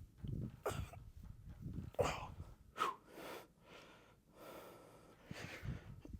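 A man breathing hard and forcefully through a set of weight-training reps: short, sharp breaths in and out in quick, uneven succession.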